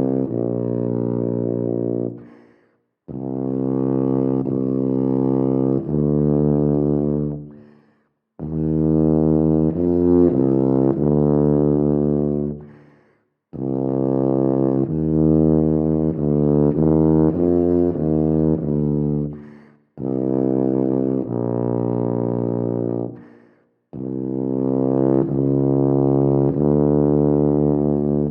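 Wessex Wyvern TC590P C tuba playing a solo étude: phrases of sustained and moving low brass notes, each breaking off briefly for a breath, about every four to six seconds.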